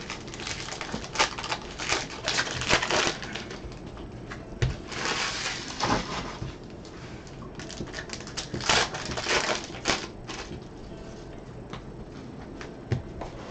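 Foil trading-card pack wrappers crinkling and cards being handled, in short rustling bursts, with a couple of light knocks.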